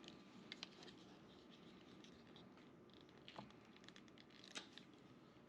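Faint handling noise with a few sharp clicks as a GoPro magnetic swivel clip is unhooked at its tabs by hand.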